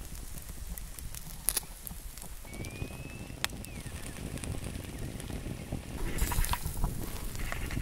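Wood-fire embers crackling with scattered sharp pops and ticks, busier about six seconds in. A low rumble comes in about two and a half seconds in, and a short thin whistle sounds about three seconds in.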